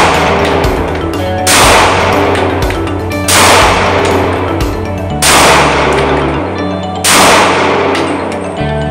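Glock G20 Gen4 pistol firing 10mm Auto rounds, four shots at an even pace about two seconds apart, each crack echoing in an indoor range. Background music plays underneath.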